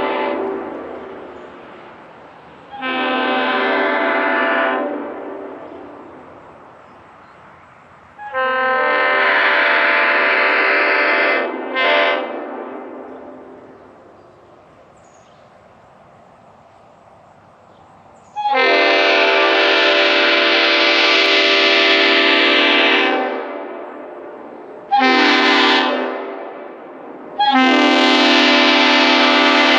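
Leslie RS5A five-chime air horn, a reproduction S5A fitted with RS bells, sounding a run of blasts. They are very loud, deep, steady chords, some short and some long, the longest about four and a half seconds, with a quick extra toot after the second. Each blast cuts off and then fades away over a second or two.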